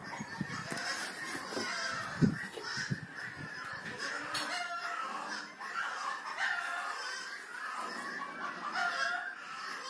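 Chickens clucking with overlapping calls, and a rooster crowing. A few low knocks in the first seconds, the loudest a sharp thump about two seconds in.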